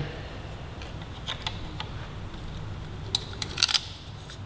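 Light clicks and taps of small metal fasteners and a carbon heel guard being handled and set in place on a motorcycle rearset bracket: a few single clicks about a second in, then a quick cluster of clicks a little past three seconds.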